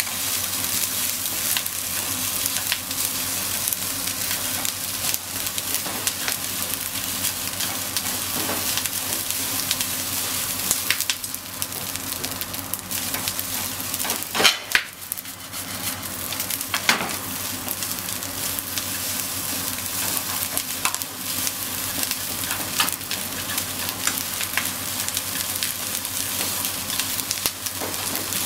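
Corn fried rice sizzling in a hot frying pan as it is stirred and turned with long cooking chopsticks, a steady hiss with a few sharp knocks.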